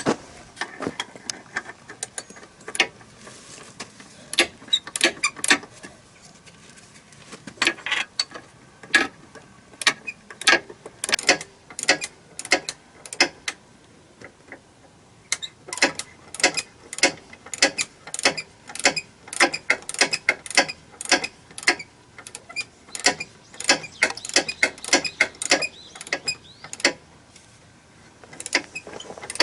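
Hand ratchet wrench clicking in runs of sharp strokes, two or three a second, with short pauses, as bolts are tightened on a rubber crawler track joint.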